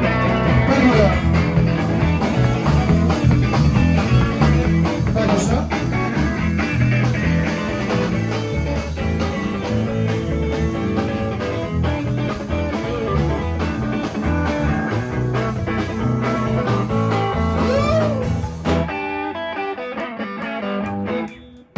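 Live electric blues band: electric guitar leading over electric bass and a drum kit. About three seconds before the end the bass and drums drop away, leaving the guitar playing alone until it cuts off abruptly.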